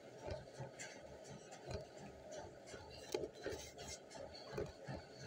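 Faint, regular thuds of running footfalls on a treadmill, about three a second, under scratchy rubbing from the handheld phone.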